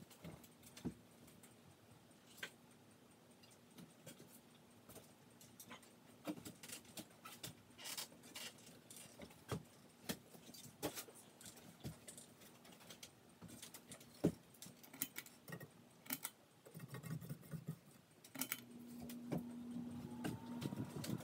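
Hampton Bay Hugger ceiling fan running, with a faint steady motor hum and irregular light clicks and rattles. About three-quarters of the way in the hum grows louder.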